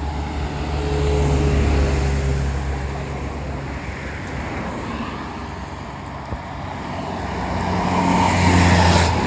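Buses passing by on the road, an engine's low drone swelling and fading twice, the louder pass near the end, over steady traffic noise.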